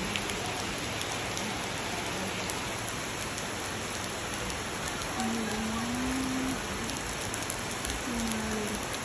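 Steady rain falling on a wooden deck and surrounding foliage. A faint low voice sounds briefly twice, in the middle and near the end.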